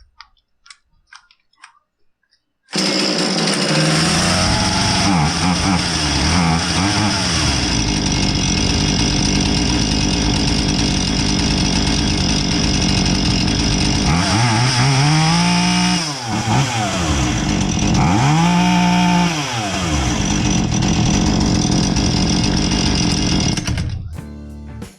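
Husqvarna 440 two-stroke chainsaw running on a test run after a no-start repair, coming in suddenly about three seconds in and holding a steady speed. It is revved up and back down twice in the second half, then stops just before the end.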